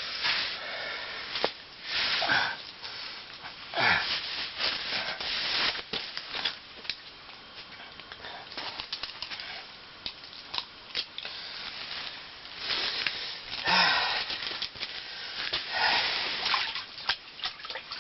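Irregular handling noises: rustling, scraping and scattered sharp clicks and taps, coming in uneven bursts.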